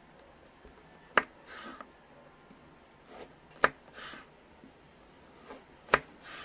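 Kitchen knife slicing through a raw carrot and knocking on a wooden chopping board, three slow, sharp knocks about two seconds apart. Each knock is followed by a short scraping rustle.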